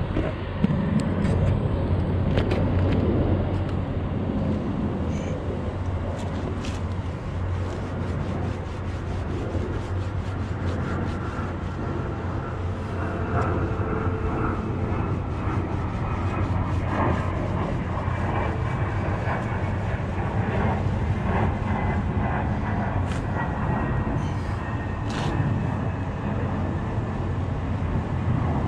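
Steady low drone of vehicle engines in a truck yard, with a faint whine that slowly falls in pitch through the middle stretch.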